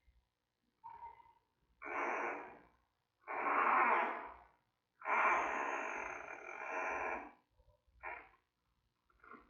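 Giant panda cub about three weeks old calling in five hoarse, breathy bursts: a faint one about a second in, two louder ones, a long one of about two seconds, then a short one near the end.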